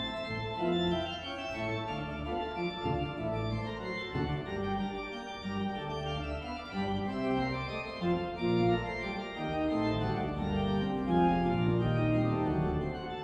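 Church organ playing held chords that change every second or so over moving bass notes.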